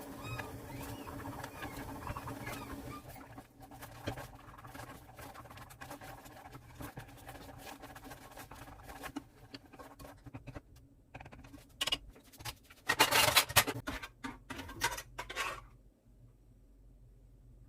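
Kitchen cooking sounds: a utensil scraping and tapping in a pan, with a run of louder clattering knocks about three-quarters of the way through that stops shortly before the end.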